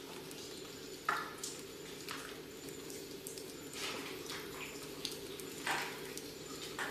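Water dripping in a stalactite cave: a handful of separate drips and small splashes at irregular intervals, over a steady low drone.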